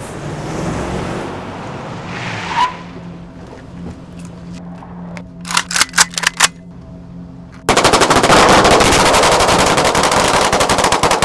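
Gunfire: after a steady low hum, a quick volley of about six shots, then a sustained burst of automatic gunfire lasting about three and a half seconds that cuts off abruptly.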